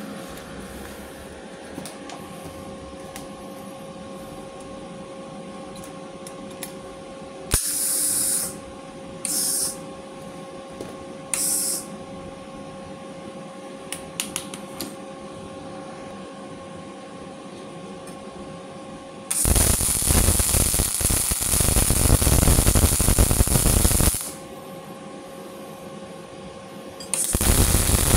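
Steady hum of a MIG-MAG inverter welding machine standing ready, with a few short hisses between about eight and twelve seconds in. Then a CO2 MIG welding arc crackles for about five seconds, stops, and strikes again near the end.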